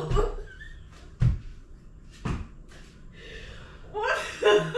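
Dull thuds of blows on a person's chest and body: one at the start, a louder one about a second in, and another about a second after that. A short burst of voice follows near the end.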